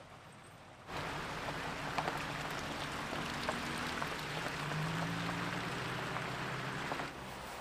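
Wet snow falling on stopped cars and the road: a steady hiss with many small ticks that starts suddenly about a second in. Underneath it is the low, steady running of idling vehicle engines in the stalled traffic.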